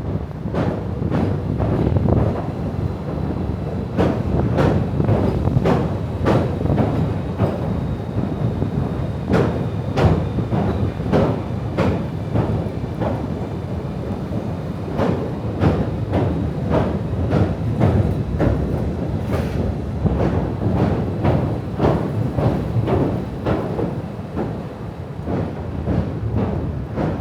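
A train running past with a steady low rumble and many wheel clicks over the rail joints.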